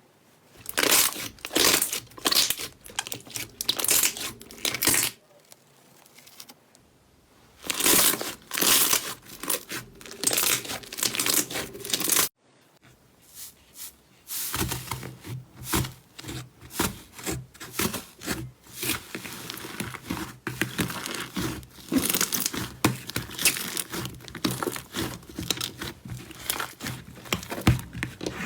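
Slime being pressed, squeezed and stretched by hand, giving dense sticky crackling and popping. It breaks off into quiet about five seconds in and cuts off again near twelve seconds, where one clip gives way to the next.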